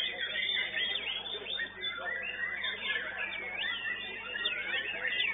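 White-rumped shama (murai batu) singing in a contest cage: a dense, unbroken run of high whistled phrases sweeping quickly up and down.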